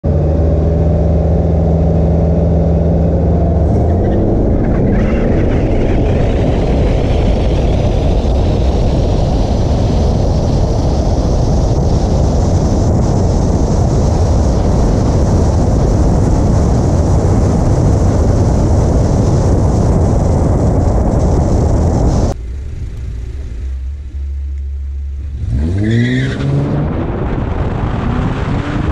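Drag-race run: a loud, steady engine and road noise with a subtle whine/whistle that rises in pitch over several seconds, which the uploader attributes to the IROC Camaro. After a sudden change about 22 s in, another car's engine revs up quickly near the end.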